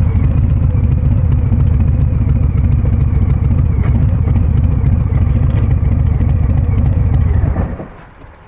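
Harley-Davidson Breakout 114's 1868 cc V-twin running steadily through a Kesstech valved exhaust, a deep even pulsing, until the sound drops away abruptly near the end.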